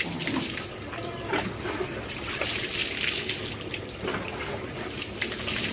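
Water poured over a goat from a plastic mug, splashing off its coat and running onto a wet concrete floor in uneven splashes and trickles.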